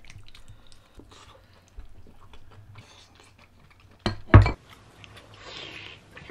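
Wooden chopsticks clicking against ceramic bowls and plates while eating, with chewing of chewy glass noodles, and one loud knock about four seconds in.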